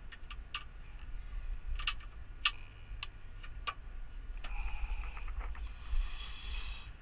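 Scattered sharp clicks and taps of parts being handled while a clip is fitted on the car's cooling system, over a low rumble. In the last couple of seconds a rougher, steadier rubbing sound joins in.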